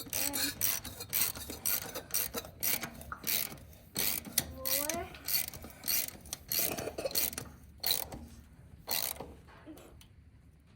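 Ratchet wrench clicking in repeated strokes, a burst of clicks about two to three times a second, thinning out toward the end.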